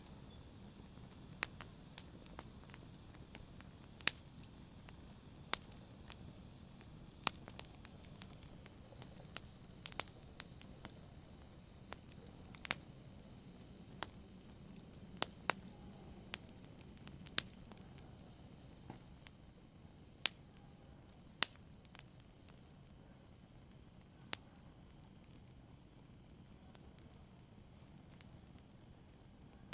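Logs burning in a fireplace, crackling: sharp pops and snaps every second or two over a faint steady hiss, the pops thinning out near the end.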